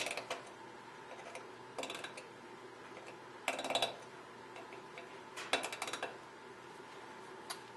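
Small steel tool clicking against a pistol slide's rear sight and its screws: three short bursts of rapid metallic ticks about two seconds apart, then a single click near the end.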